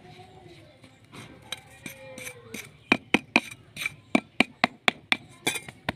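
A metal hand tool clinking in quick, sharp strikes, about four a second, starting about three seconds in after a few softer taps.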